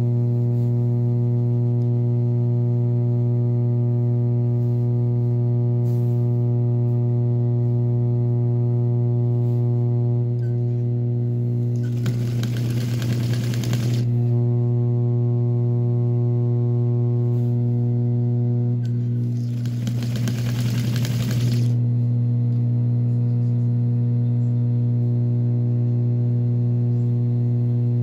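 Sewing machine: its electric motor hums steadily throughout, with two stretches of stitching, each about two seconds long, about twelve and twenty seconds in.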